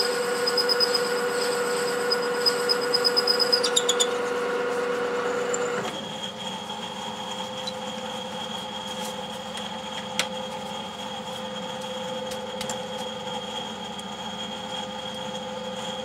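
Metal lathe running while a 12 mm twist drill bores into a phosphor bronze bar, a steady machine hum with a high cutting squeal over it. The squeal stops about four seconds in, and a couple of seconds later the lathe runs on more quietly with a steady higher whine.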